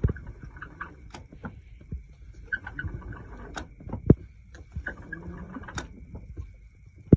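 Irregular light knocks and clicks, with a sharper knock about four seconds in, over a faint steady high-pitched tone.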